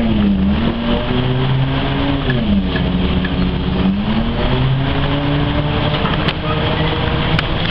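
Ikarus-435.17 articulated bus's diesel engine running under way, heard from inside the bus. Its note dips, climbs, drops back about two and a half seconds in, and climbs again as the bus pulls along.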